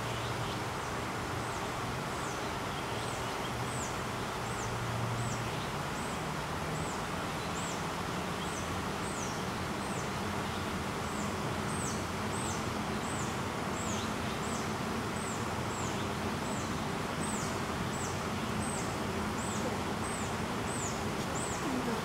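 A small bird repeating a short, high, falling call about twice a second, over a steady outdoor background hiss.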